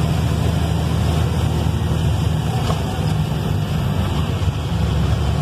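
Cargo truck's engine and road noise heard from inside the cab while driving: a steady low drone.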